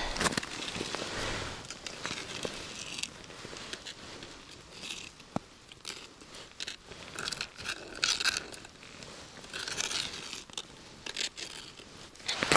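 Irregular crunching and rustling of snow and ice with scattered clicks, as a pike tip-up's line is hauled up by hand through a hole in the ice.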